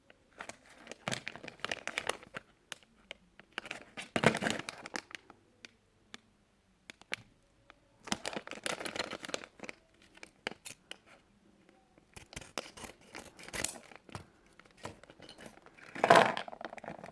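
A sealed plastic LEGO minifigure bag being crinkled and torn open, in irregular bursts of rustling with short pauses between them. The loudest burst comes near the end.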